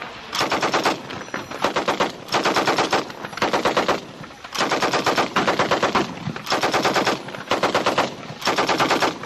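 M60 machine-gun fire (7.62 mm): a string of short bursts of several rapid shots each, about eight bursts one after another with brief pauses between them.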